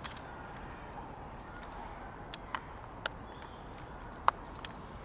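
A small bird gives two short, high, falling chirps about half a second in, over a steady outdoor hiss. A few sharp clicks follow in the middle and later on, the loudest near the end.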